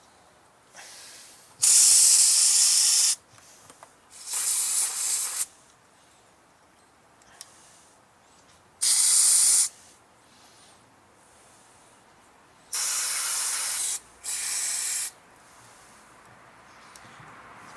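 Aerosol carburetor cleaner sprayed in five short hissing blasts through a Kohler mower engine's carburetor to flush out its clogged jets. The first blast is the longest, about a second and a half.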